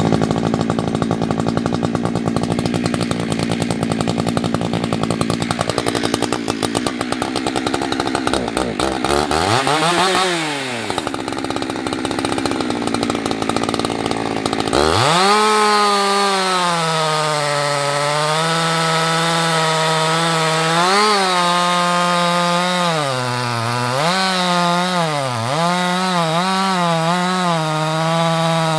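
Husqvarna 365 two-stroke chainsaw running: an uneven, lower-revving chatter for about fifteen seconds, with one brief rev about ten seconds in. It then jumps to high revs and holds there, the pitch dipping several times as the chain loads up in the wood.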